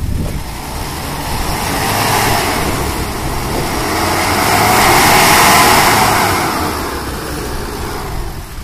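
Old Mahindra Thar's diesel engine revving hard as the jeep strains, stuck nose-deep in mud, the noise swelling to its loudest about five seconds in and then easing off.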